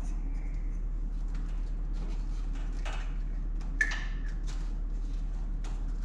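Small plastic clicks and rustling of wiring harness connectors being handled, with a sharper click just under four seconds in, over a steady low hum.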